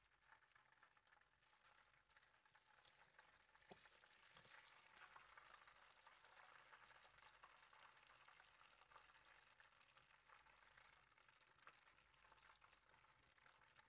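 Very faint crackling sizzle of hot frying oil bubbling in a pan, with a soft click a little under four seconds in.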